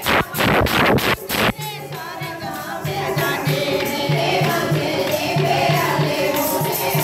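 Kirtan devotional music: a fast, even beat of percussive strokes for the first second and a half, then a group of women singing a devotional chant. The beat comes back at the very end.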